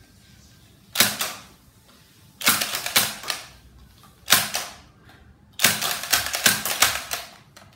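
NERF Elite Strongarm dart blaster being slam-fired: the slide is pumped with the trigger held, so each pump fires a dart, giving sharp plastic clacks and pops in bunches. The bunches come slowly at first and crowd together in the last couple of seconds.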